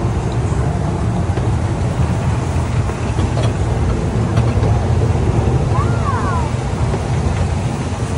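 Kiddie ride train running along its track, a steady low rumble from the cars and wheels. A brief high squeak rises and falls about six seconds in.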